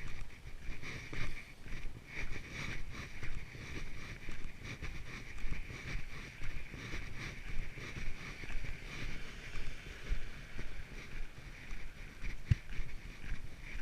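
Walking footsteps on a trail, about one to two a second, with wind rumbling on the microphone and a steady high hiss behind.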